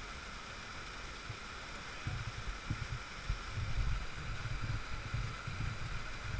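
Rushing water from small cascades pouring into a rocky river pool: a steady hiss, with uneven low rumbling from about two seconds in.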